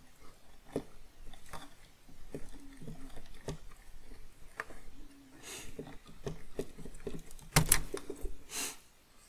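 Scattered small clicks, knocks and rustles from fingers working push-on wire terminals off a power switch inside a metal power-supply chassis. There is a sharp click about seven and a half seconds in.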